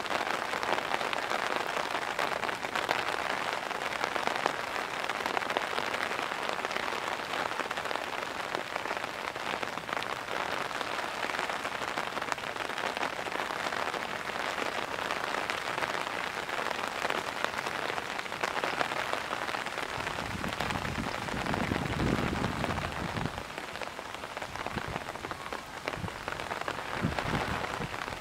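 Downpour of heavy rain on hard surfaces: a steady hiss of dense drop impacts. A low rumble rises and fades about two-thirds of the way through.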